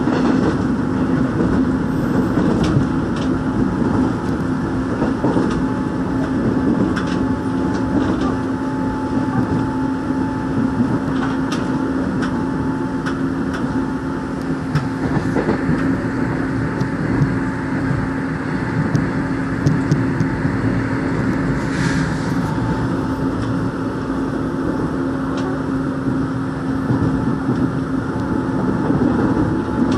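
Interior running noise of a Seoul Line 1 rheostat-controlled electric train at speed: a steady rumble of wheels on rail with a steady low hum. A few light clicks come through over it.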